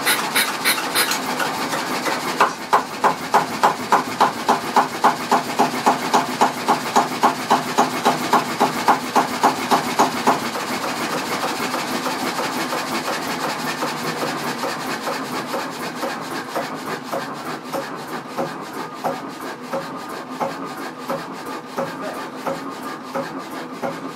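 Engine running with a slow, regular firing beat of about two to three beats a second, loud for the first ten seconds, then softer and slowly fading toward the end, around the moment its petrol supply runs out.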